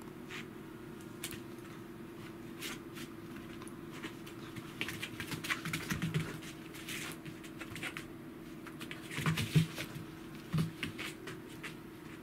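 Pembroke Welsh corgi and black cat scuffling at play: paws and claws scrabbling and tapping on a wooden floor, with a few dull thumps. The scrabbling is busiest around the middle and again about three-quarters of the way through, over a low steady hum.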